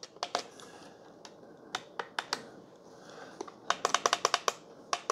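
Small plastic push buttons on the back of a PEAKEEP digital alarm clock clicking under a thumb: a few separate presses, then a quick run of clicks about three and a half seconds in.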